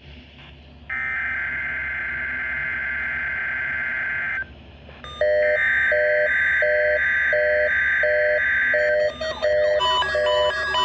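Electronic alert tones opening a mock Emergency Alert System weekly test: a steady high tone for about three and a half seconds, then after a short break a second steady tone with short lower beeps under it a little under twice a second. About nine seconds in these give way to a quick melody of electronic beeps like a ringtone.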